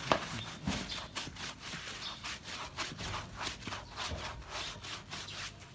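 Hands scrubbing shampoo lather into a wet golden retriever's coat: quick, wet rubbing strokes, about four a second.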